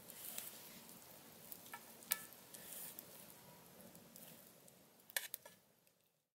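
Knife and wooden utensil cutting cooked meat in a stainless steel bowl: soft scraping with scattered sharp clicks of the blade on the metal, a quick cluster of clicks about five seconds in, then fading out.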